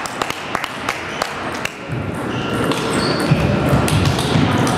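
Table tennis balls clicking off tables and bats, many sharp pings in quick irregular succession from several tables at once, echoing in a large hall. About two seconds in a low rumble rises under the clicks, with a few short high squeaks.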